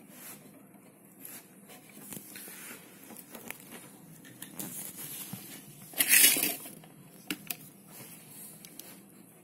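Handling noise of a speaker cable's DIN plug being fumbled into the sockets on a radiogram's fibreboard back panel: scraping, rustling and small clicks, with a louder harsh scrape about six seconds in and two sharp clicks soon after.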